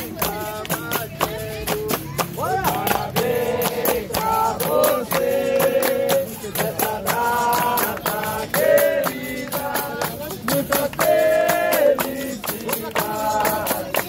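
Capoeira roda music: singing over the berimbau and pandeiros, with hand clapping and drum hits keeping a steady beat.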